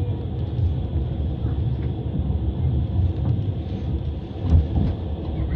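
Passenger train running, heard from inside the carriage: a steady low rumble of wheels on the rails, with a few light knocks and a louder knock about four and a half seconds in.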